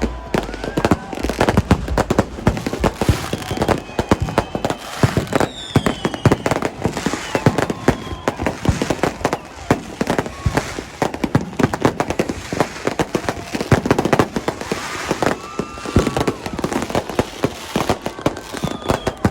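Many fireworks and firecrackers going off at once in rapid, overlapping bangs and crackles, with no let-up.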